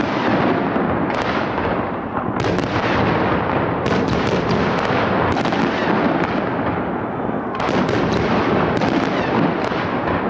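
Large fireworks display: aerial shells bursting one after another in many overlapping booms and bangs, merging into a continuous loud rumble.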